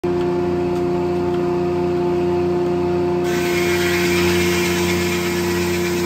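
Corley circle sawmill's large circular blade spinning with a steady hum. About three seconds in, the blade bites into the log and a loud cutting hiss joins the hum as it saws off a board.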